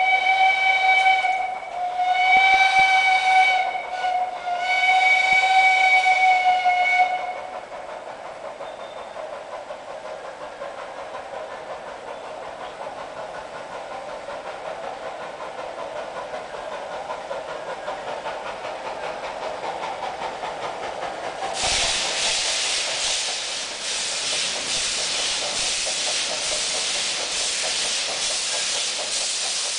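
A 1:3 scale steam locomotive blows its steam whistle three times, the last blast the longest, then works toward the listener with a steady sound that slowly grows. About 22 seconds in, a loud steam hiss starts suddenly and carries on with a rhythmic beat as the engine comes close.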